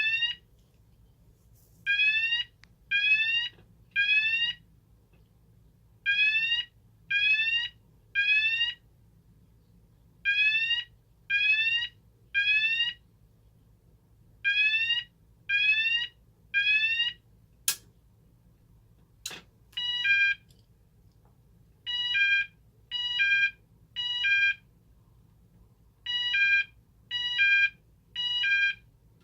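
Cooper MIN-T fire alarm sounder running through its tones. It first gives rising whoop sweeps in groups of three with a pause between groups. Then come two sharp clicks, and after them a steady beep tone in the same three-pulse temporal pattern.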